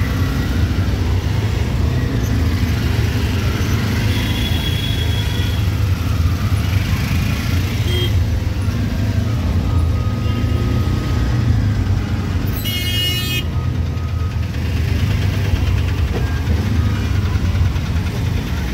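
Auto-rickshaw engine running steadily, heard from inside the open cab in slow traffic. A brief horn sounds about thirteen seconds in.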